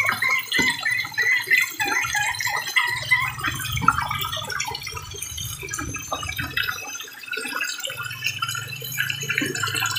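Water splashing and sloshing as a crowd of tilapia feeds at the pond surface. A hen clucks over and over in the first couple of seconds.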